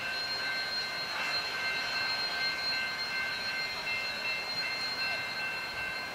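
Union Pacific 844, a 4-8-4 steam locomotive, approaching from a distance: a steady, even rumble and hiss with a thin, high, steady ringing tone running through it.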